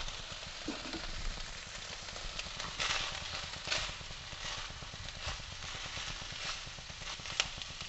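Soya chunks and vegetables sizzling in a wok while a spatula stirs and tosses them, knocking and scraping against the pan about once a second from about three seconds in.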